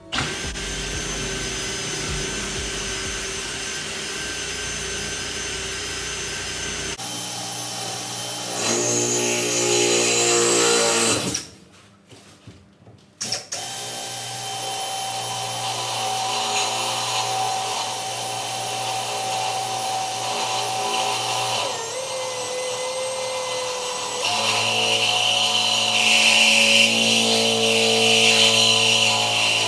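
Electric drill running under load in long stretches, drilling. It stops for about two seconds some eleven seconds in, then runs steadily again and gets louder near the end.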